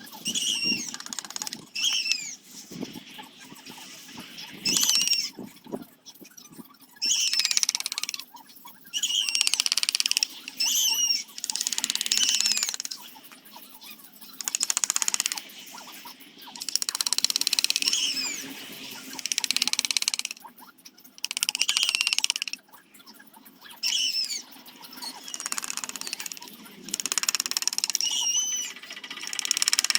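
Zelkova wood being worked by hand with a carving chisel or sandpaper: a run of rhythmic scraping strokes, one every second and a half to two seconds, many of them opening with a short high chirp.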